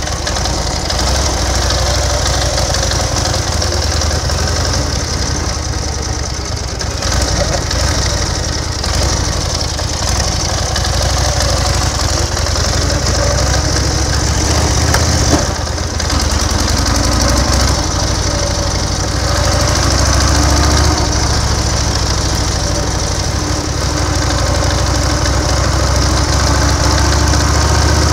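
1930 BSA 770 cc V-twin motorcycle engine running steadily while the bike is ridden along the road. Its sound dips briefly a couple of times.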